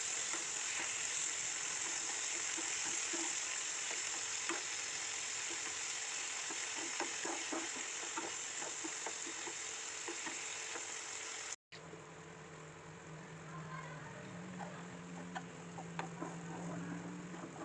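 Food frying in a pan: a steady sizzle with small crackles. About two-thirds of the way through it cuts out for an instant, then carries on quieter, with scattered pops over a low hum.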